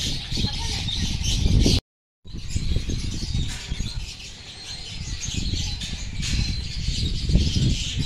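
Many birds chirping and twittering together over a low rumble; the sound cuts out for a moment about two seconds in.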